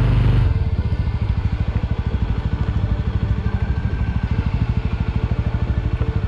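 Suzuki Thunder motorcycle engine running at low revs with a quick, even beat of firing pulses as it is ridden slowly along a dirt trail. Background music cuts off about half a second in.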